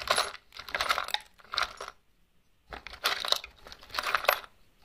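Loose screws, bolts, nuts and other small metal hardware in a wooden box clinking and rattling as a hand rummages through them, in about five short bursts with a brief pause about two seconds in.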